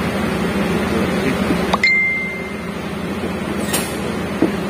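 A light metallic clink about two seconds in that rings on briefly as a clear high tone, then a second sharp click and a faint tap near the end, over a steady background hum.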